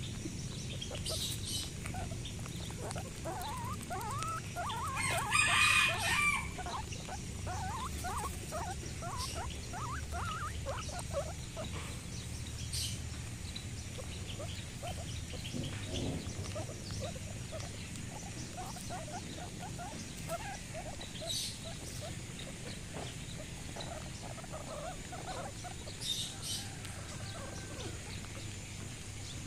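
Animals calling: a rapid run of short clucking, chirping calls, with one louder, longer call about five seconds in and more calls later on.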